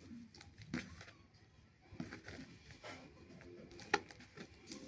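Faint, scattered small clicks and taps from handling the freshly made slime and its mixing container.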